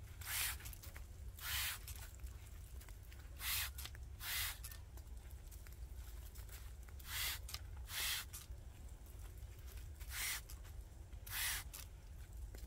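Daia hand sprayer giving short hissing puffs of streptomycin solution onto Shine Muscat grape flower clusters for seedless treatment. There are eight puffs in four pairs, one from each side of a cluster, with the two of a pair about a second apart.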